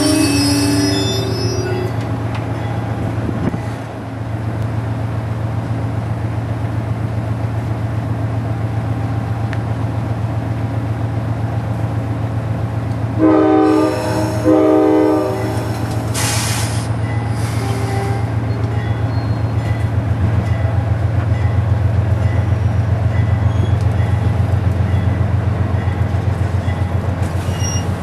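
Amtrak Amfleet passenger coaches rolling past at close range, a steady rumble with fast wheel clatter. The lead GE B32-8WH locomotive's K5LA air horn sounds from up ahead: a held chord that ends about a second in, then two short blasts about halfway through.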